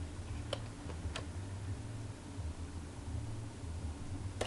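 Low steady hum and hiss of a quiet room, with two faint clicks about half a second apart from a plastic VHS tape case being handled.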